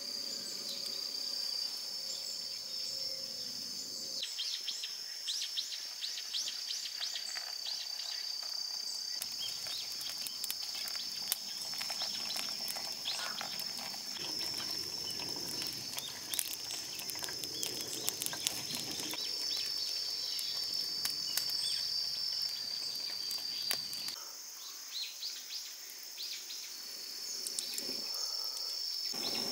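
Insects trilling in a steady high-pitched drone that breaks off and restarts several times, with scattered sharp crackles and ticks over it.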